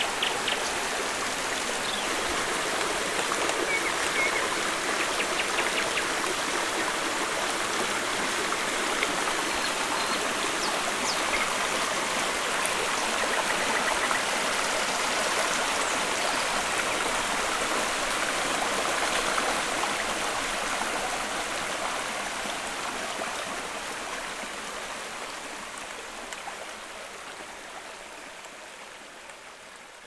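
Shallow stream running and babbling over stones, steady, then fading out over the last ten seconds or so.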